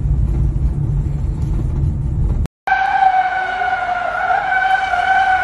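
Low, steady rumble of a car driving, heard from inside the cabin. It cuts off about two and a half seconds in and is followed by a steady high-pitched tone with several overtones, which holds level with a slight wobble.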